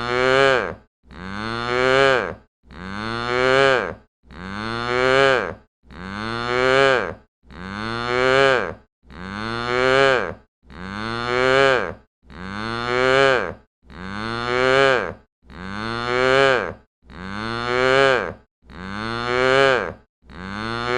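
A cow mooing dry, with no echo, the same short moo looped over and over about every one and a half seconds. Each call swells and bends upward in pitch, then cuts off abruptly.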